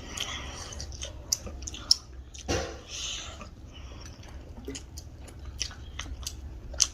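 A person chewing a mouthful of food, with wet mouth clicks and smacks scattered throughout and a few sharper clicks.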